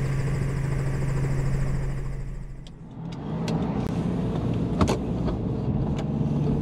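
Steady drone of a Robinson R44 helicopter's engine and rotor in the cabin, fading out about two and a half seconds in. It gives way to the running noise of a car, with a few sharp clicks.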